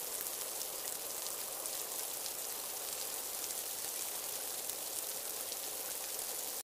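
Steady rain falling on standing floodwater, an even hiss with a fine patter of drops.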